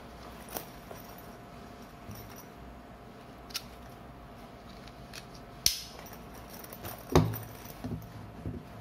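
Under Armour Storm1 waist bag being handled: its strap and hardware make scattered small clicks and taps, with a sharp click a little before six seconds in and a louder knock about seven seconds in.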